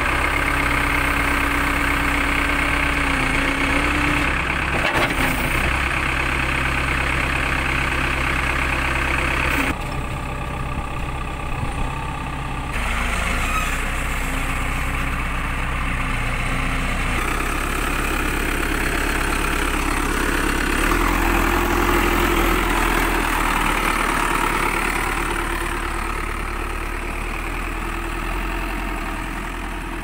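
Diesel engine of a Cat 424B backhoe loader running steadily while the machine works, its note shifting abruptly several times.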